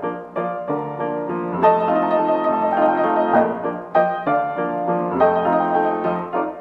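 Piano music: a melody over chords, notes struck in quick succession.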